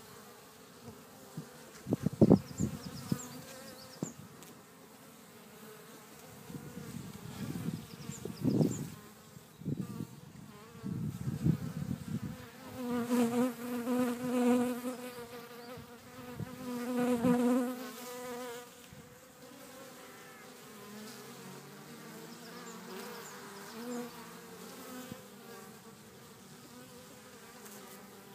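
Honeybees buzzing around a beehive. Individual bees pass close several times with louder buzzes, strongest in the middle, and near the end some buzzes slide up and down in pitch as bees fly by.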